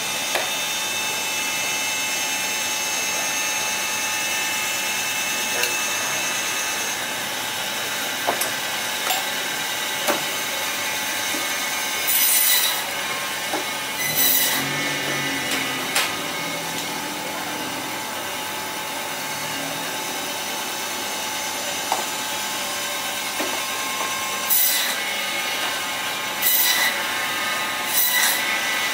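Meat band saw running with a steady whine, its blade cutting through lamb bone in short harsh bursts: two about halfway through and three more near the end. There are a few light clicks of the meat being handled on the saw table.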